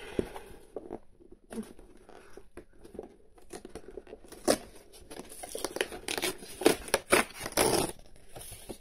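Cardboard doll box handled and its taped back panel pried open: scraping and rustling, then from about four and a half seconds in a run of louder crackling tears as the tape pulls loose from the cardboard.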